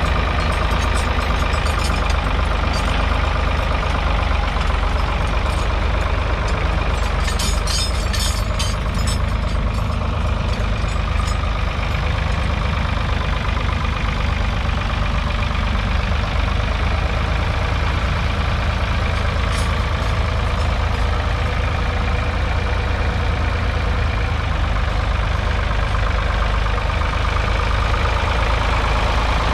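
A 1970 Ford 3000's 2.9-litre three-cylinder diesel engine running steadily while the tractor works a two-furrow mounted plough, with a patch of light clicking about a third of the way in.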